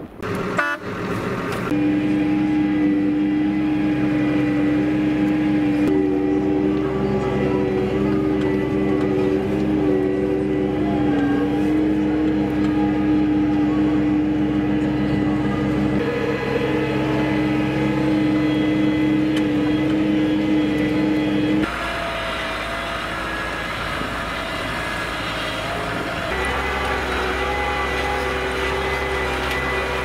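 Case IH Maxxum 140 tractor's diesel engine running steadily with a strong droning tone, the sound shifting a few times as the view changes and dropping slightly in level about two-thirds of the way through.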